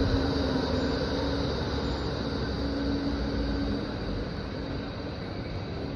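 A vehicle's steady running hum with a held whine in it, loudest at first and slowly fading as it moves away.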